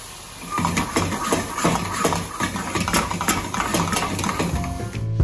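Cream and white-wine sauce boiling hard in a frying pan over a gas flame, crackling and spitting with rapid pops as cubes of butter melt into it. It rises sharply about half a second in.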